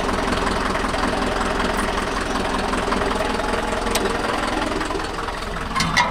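Mahindra Yuvo Tech+ 585 tractor's diesel engine running steadily, with a faint click about four seconds in and a couple of light clicks near the end.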